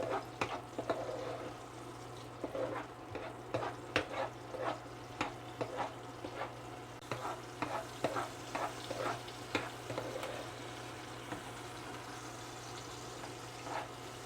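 Chopped onions frying in hot vegetable oil in a pot: a steady sizzle with frequent irregular pops and crackles.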